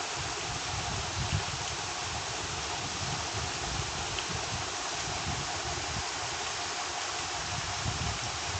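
Steady, even hiss with a faint uneven rumble beneath it, and no speech.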